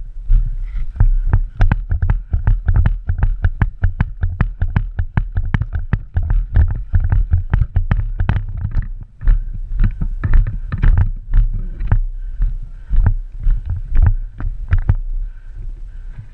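Quick, irregular footfalls and rattling gear, about three to four knocks a second, over a heavy low rumble on the microphone, as a player moves fast on foot; the knocks thin out near the end.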